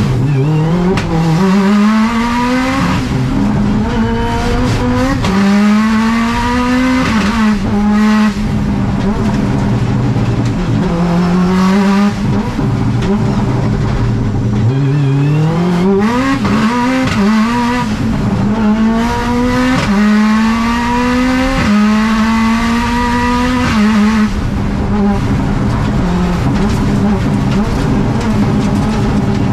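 Subaru rally car's engine heard from inside the cabin, revving hard under full acceleration. Its pitch climbs through one gear after another, and each rise is cut off sharply at the upshift.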